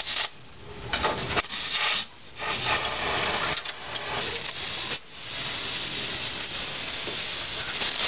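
Arc welding on rusted sheet-steel car body panel: a steady crackling hiss that comes in runs, breaking off briefly near the start, about two seconds in and again about five seconds in.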